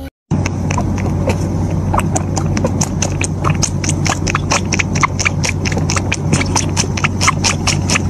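Tabby cat suckling milk from a baby bottle: quick, regular sucking clicks, about five a second, over a steady low hum.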